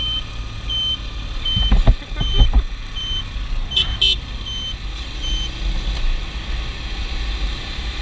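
Steady low rumble of a motorbike on the road, with a short high electronic beep repeating about every three-quarters of a second until about five seconds in. A few low thumps come around two seconds in.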